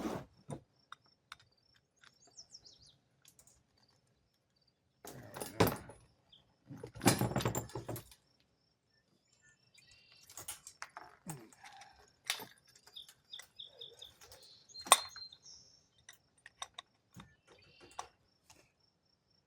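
Scattered handling clicks and rustles of a Teflon-taped pipe-thread fitting being screwed together and tightened, with two louder rustling bursts about a third of the way in. Faint bird chirps sound in the background.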